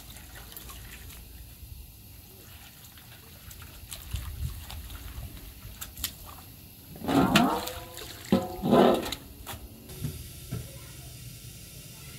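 Wet clothes being swished and worked by hand in a metal basin of water, with splashing and small slaps. About seven seconds in come two short, loud voice sounds, a second or so apart.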